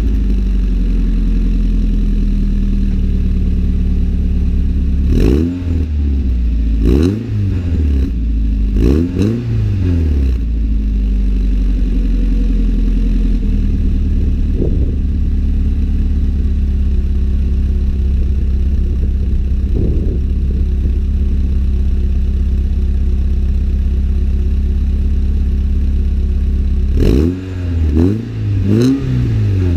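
Nissan 240SX engine idling through a Top Speed cat-back exhaust with its silencer fitted. It is revved several times in short blips between about five and ten seconds in, and again in a quick cluster near the end.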